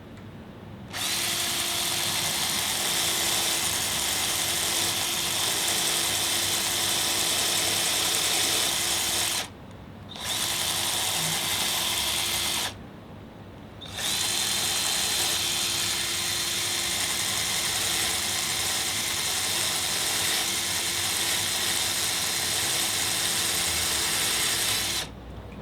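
Corded electric drill running at steady speed with a bit grinding down the surface of a brake caliper to clear the chain, with a constant whine. It runs in three stretches, stopping briefly about nine and a half and twelve and a half seconds in.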